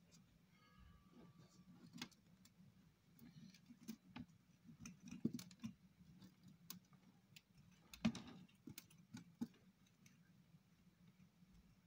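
Faint scratching and light clicks of a small bonsai root rake combing peat soil out of a ficus ginseng root ball. The scrapes come irregularly, loudest about five and eight seconds in.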